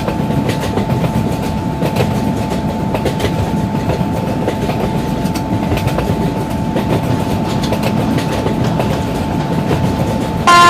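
Express train running past, its wheels clacking over the rail joints under a steady rumble and a thin steady whine. Near the end a loud train horn suddenly starts sounding.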